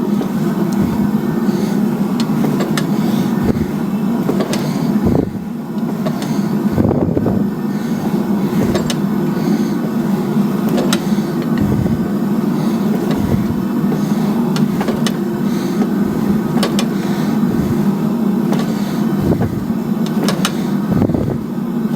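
A forge running with a steady roar, with scattered sharp clicks and a few dull low thumps over it.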